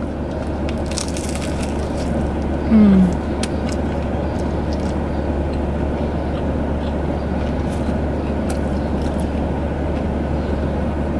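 Steady low hum inside a car cabin, with faint crunchy chewing clicks from eating pizza and a brief falling hummed 'mm' about three seconds in.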